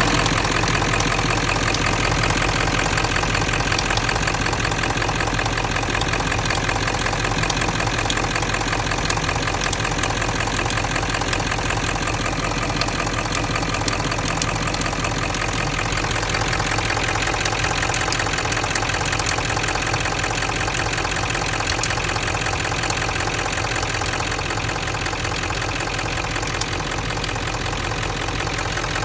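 7.3 V8 diesel engine idling with a fast, even clatter, the typewriter-like sound the engine is known for, along with a metallic ticking whose cause is in question.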